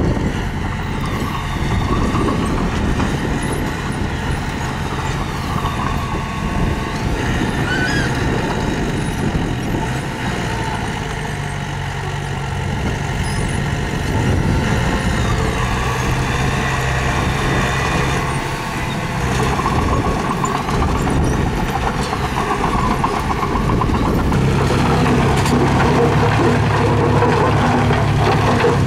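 Mini bulldozer's diesel engine running steadily as it works, a little louder in the last few seconds.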